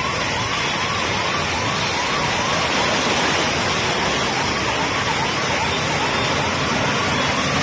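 Steady rushing noise of rain and floodwater, with a faint electronic siren yelping in quick rising-and-falling sweeps about twice a second, stopping near the end.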